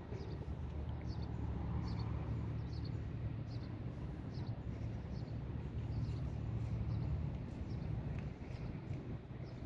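Massive MT-24 24 HP mini tractor engine running steadily, a low even rumble. Short high chirps repeat about once or twice a second over it.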